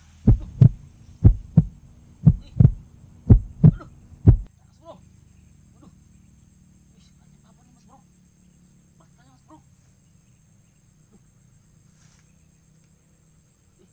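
Deep, loud thumps in pairs about once a second, like a heartbeat: four pairs and then a single one, stopping after about four and a half seconds. Then only faint scattered clicks.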